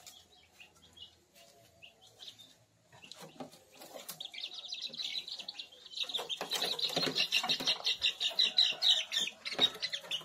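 Month-old village chicks peeping: a few scattered peeps at first, then a rapid, loud stream of high peeps from about six seconds in as one chick is grabbed by hand, with wings flapping and scuffling in the cage.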